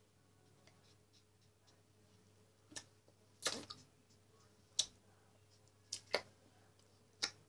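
Faint, sharp clicks and taps, about six of them at uneven intervals, two of them close together near the end, over a quiet room hum.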